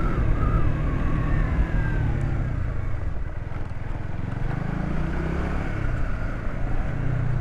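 Engine of a Honda manual-clutch motorcycle running as it is ridden, with a continuous low rumble. The engine note falls over the first couple of seconds and rises again around the middle.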